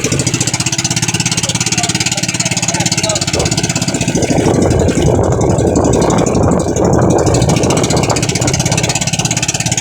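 Small inboard engine of a motorized outrigger fishing boat (pambot) running steadily and loud at close range, with an even, rapid chugging.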